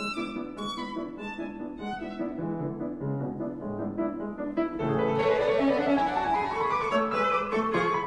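Instrumental background music, growing fuller and louder about five seconds in.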